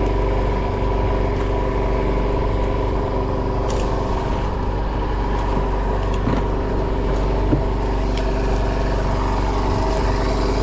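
Boat engine running steadily at an even speed, with a few faint clicks and knocks on board.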